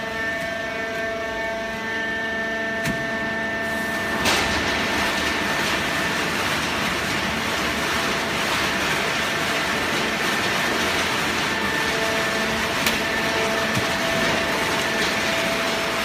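Fully automatic horizontal hydraulic cardboard baler running with a steady mechanical whine. About four seconds in, a broad rushing noise starts sharply and keeps going.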